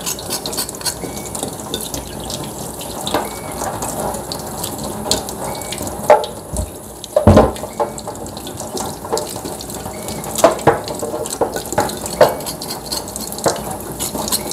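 Tap water running into a stainless steel sink and splashing over galangal being scraped clean with a knife, with scraping clicks and a few knocks, the loudest about seven seconds in.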